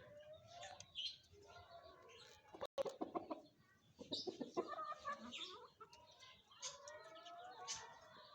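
Chickens clucking, mixed with the high chirps of small birds.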